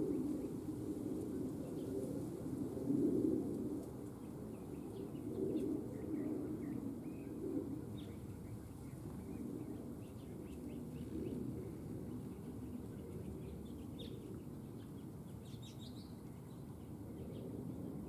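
Small songbirds chirping faintly in short scattered notes over a steady low rumble that swells and fades.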